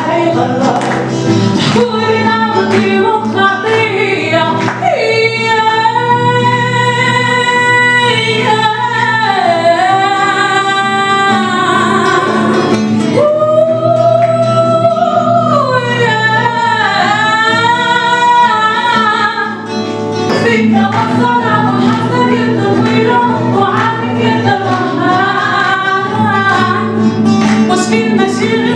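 A woman singing into a microphone over an acoustic guitar. Around the middle she holds long notes that bend and slide in pitch.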